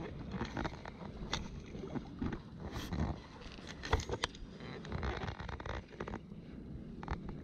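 Shallow water sloshing and lapping around a wading angler, with irregular clicks and knocks from handling the rod and reel while playing a hooked fish.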